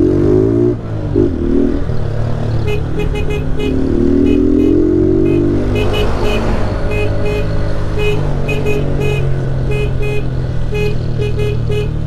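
Single-cylinder Honda 160 motorcycle engine pulling under acceleration, its pitch rising near the start and again about four seconds in, then running steadily. From about three seconds in, a rapid series of short high beeps sounds alongside it.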